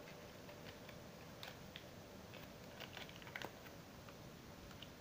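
Faint scattered clicks and crinkles of fingers picking open a small wrapped package, with a short cluster of louder ticks about three seconds in.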